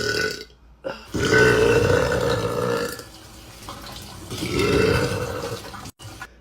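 A woman burping: two long, loud belches, the first about two seconds long and the second a little shorter, after the tail of an earlier one right at the start.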